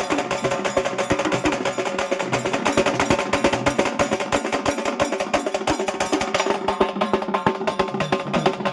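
Halgi frame drums beaten fast with sticks, a dense run of sharp, dry strokes, over a few held melody notes.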